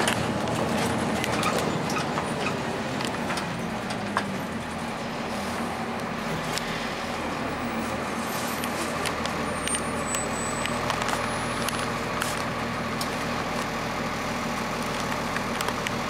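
Cummins ISC inline-six diesel of a Blue Bird CS transit bus running as the bus drives, heard from inside the cabin. It is louder in the first few seconds, then eases off as the bus slows, with scattered clicks and rattles throughout.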